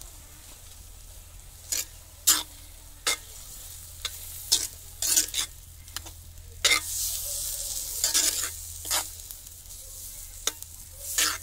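Steel spoon stirring cooked rice into tomato gravy in a pan. Irregular scrapes and clinks of the spoon against the pan come every second or so, with a soft rustling hiss as the rice is turned, strongest a little past halfway.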